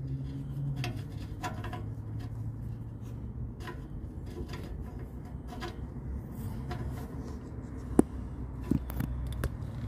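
Rubbing and scattered light clicks of hands threading a new oxygen sensor into its exhaust fitting by hand, over a low steady rumble, with one sharp click about eight seconds in.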